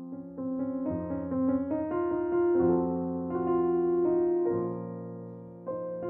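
Piano music: a run of quick notes, then held chords that slowly fade.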